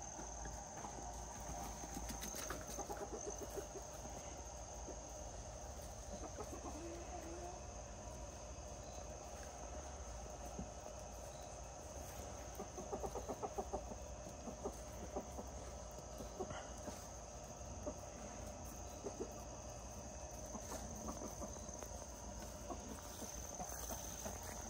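Backyard chickens clucking quietly now and then, over a steady high-pitched insect drone.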